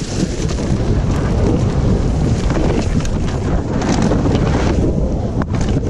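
Wind buffeting the microphone of a helmet-mounted action camera, over the rumble and rattle of a mountain bike rolling fast down a rough dirt trail and onto wooden slats. There is a sharp click about five and a half seconds in.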